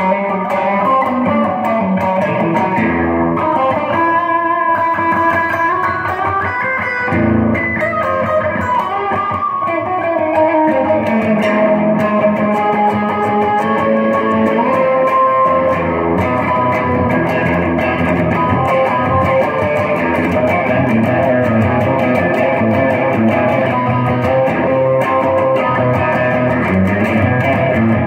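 Stratocaster-style electric guitar being played, a continuous run of picked notes and chords with no break.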